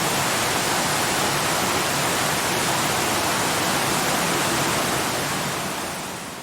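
Waterfall rushing: a steady, even hiss of falling water that fades out near the end.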